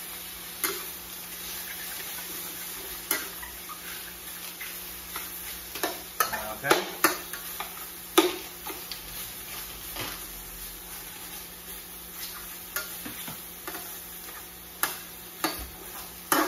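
Stir-fry sizzling in a hot wok, with a metal wok spatula scraping and knocking against the pan at irregular intervals as the chicken and broccoli are tossed.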